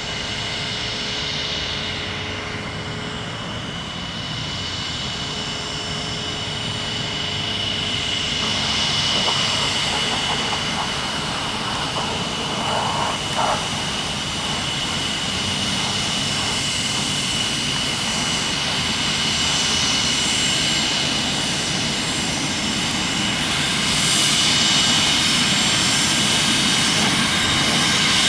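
Cessna Citation 650 business jet's twin turbofan engines running, with a steady high whine over a broad roar. The sound grows gradually louder and steps up again about 24 seconds in, as the jet readies for and begins its takeoff.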